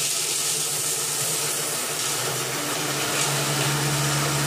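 Monsieur Cuisine Connect kitchen robot running at top speed, its blades grinding hazelnuts, cocoa and baking powder to a powder: a loud, steady whirring with a hiss over a low motor hum. The hum grows stronger about three seconds in.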